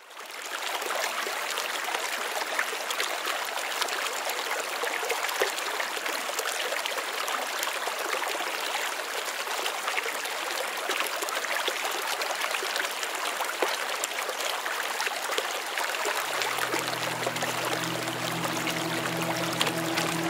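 River water flowing and rippling, a steady rush that fades in at the start. Low sustained music notes fade in about 16 seconds in.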